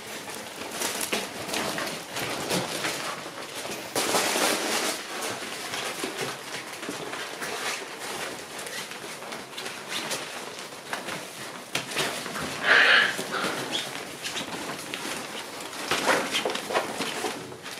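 Shiba Inu puppies playing and tussling: paws scrabbling and tapping on the floor with rustling, in irregular scratchy bursts, and one short high-pitched puppy squeal about 13 seconds in.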